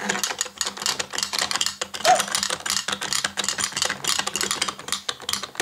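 Rapid, continuous plastic clicking and clattering from a toy horse-race playset as two toy horses run side by side along its tracks. It stops abruptly at the end.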